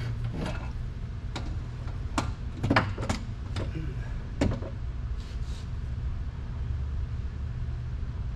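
Irregular clicks and knocks of hand tools being handled while fitting a bolt at the front of a rear differential, about eight in the first four and a half seconds and then quieter, over a steady low hum.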